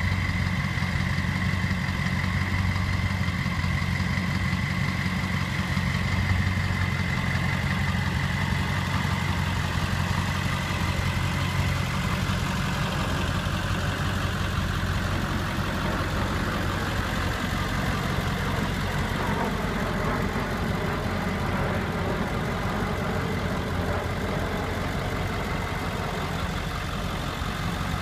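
A 2000 Ford F-350's 7.3 Power Stroke V8 turbo diesel idling steadily, with a thin high whine over the low rumble.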